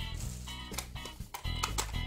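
Background music with a steady bass line, with several sharp clicks in the second half.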